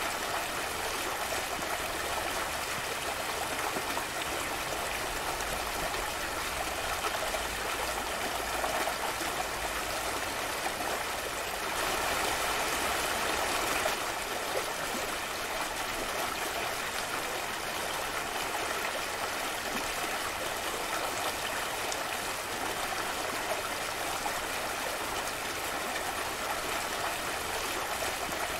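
Shallow mountain stream flowing fast over and between boulders: a steady, even wash of water, a little louder for a couple of seconds midway.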